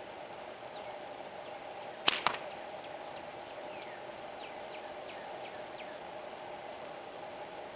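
A single slingshot shot from a Red Scorpion slingshot: a sharp snap as the bands release, followed about a fifth of a second later by a second crack as the shot strikes the target. Faint quick high chirps sound in the background over a steady hum.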